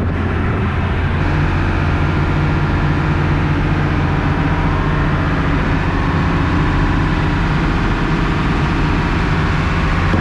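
Boat engine running steadily at cruising revs, an even low hum that holds at one pitch.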